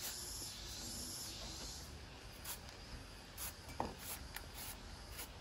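A faint steady high hiss that fades out about two seconds in, then a handful of small, sharp clicks and crunches.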